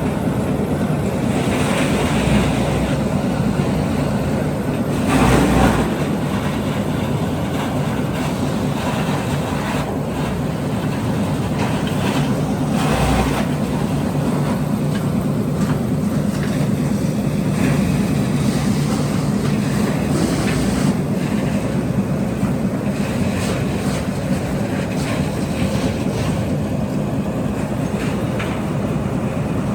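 Industrial disc wood chipper running with a steady, loud mechanical rumble, louder for a moment about five seconds in and again around thirteen seconds.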